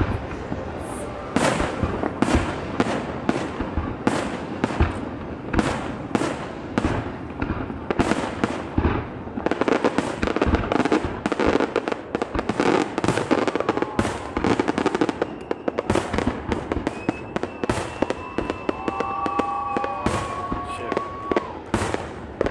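Fireworks display: aerial shells bursting one after another, several sharp bangs a second, with a dense stretch of crackling in the middle.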